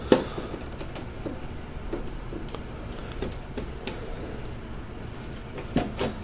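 Screwdriver turning and prying the plastic push-type retainer clips that hold a car's front grille: scattered small plastic clicks and scrapes, the sharpest just after the start.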